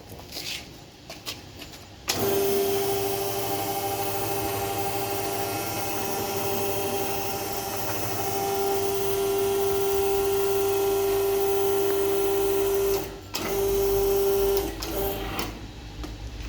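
Electric hydraulic power pack of a bike service lift running: a steady motor-pump whine with one strong tone, which starts about two seconds in. It cuts out briefly about thirteen seconds in, runs again for about a second, and gives one short last burst before stopping.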